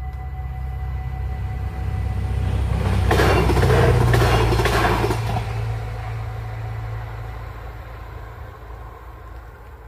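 Stadler GTW diesel-electric multiple unit passing a level crossing. The engine's low rumble builds, is loudest about three to five seconds in as the train goes by with a few wheel knocks and rail clatter, then fades away.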